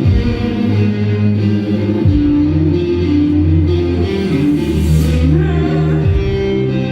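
Live rock band playing an instrumental passage between sung lines: electric guitar over sustained bass notes that change every second or two.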